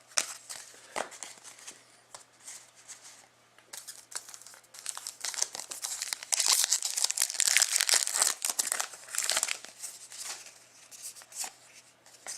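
Wrapper of a Masterpieces hockey card pack crinkling and tearing as the pack is opened. The crackling is loudest and densest from about halfway through to near the three-quarter mark.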